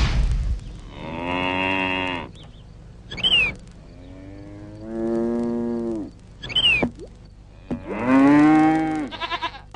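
Three long moo calls, each about a second, steady in pitch with rich overtones. Between them come two short, sharp sounds with a quick falling squeak.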